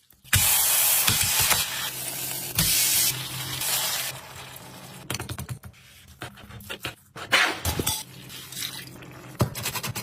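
Cooking sounds: a loud hiss of liquid being poured or sprayed, or of food sizzling, lasting about four seconds. Scattered clicks and taps of kitchen utensils follow.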